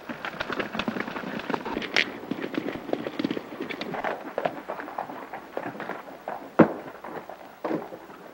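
A horse galloping: a rapid, uneven clatter of hoofbeats, with one sharp, louder crack late on.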